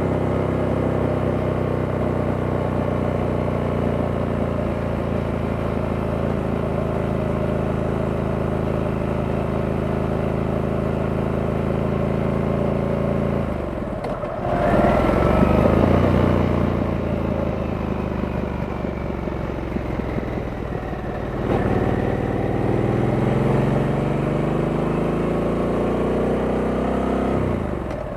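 Harley-Davidson Sportster S's 1250 cc V-twin engine under way: steady at cruising revs for about the first half. It then pulls up through the revs with brief breaks at gear changes about halfway through, again around three-quarters of the way, and once more at the very end.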